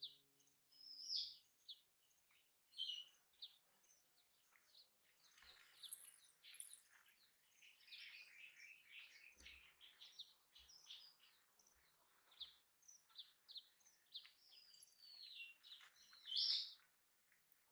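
Faint chirping of small birds: many short, high notes scattered throughout, with a couple of louder chirps about a second in and near the end.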